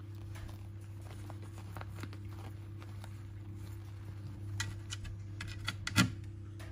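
Yorkshire terrier puppies scrabbling and shuffling about in a padded dog bed: small scratches and clicks, busier in the second half, with one sharper knock about six seconds in, over a steady low hum.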